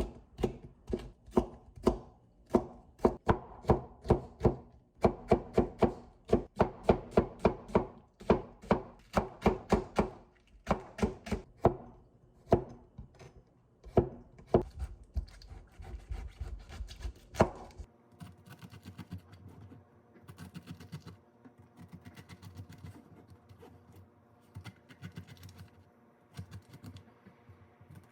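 Knife chopping on a cutting board in quick, even strokes of about three a second; near the end the chopping gives way to fainter, lighter tapping.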